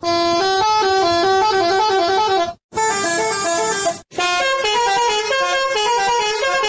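A bus's multi-tone musical air horn ("telolet" horn) playing a quick stepping tune of several notes sounding together. It breaks off briefly twice, a little under halfway through and again a bit later.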